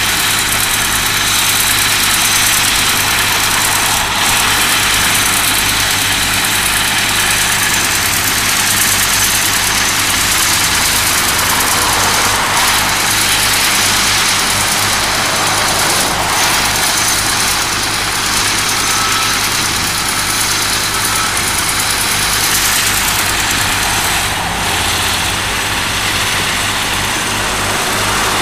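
Diesel engines of a Cat 311D LRR compact excavator and a Cat 257B tracked skid steer running steadily while working.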